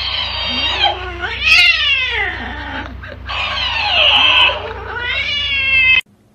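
Domestic cat yowling angrily in several long, drawn-out calls whose pitch slides up and down, aimed at a talking-hamster plush toy. The sound cuts off suddenly near the end.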